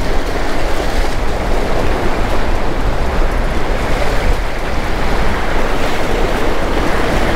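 Surf washing and breaking over jetty rocks, a steady rushing of water, with wind rumbling on the microphone.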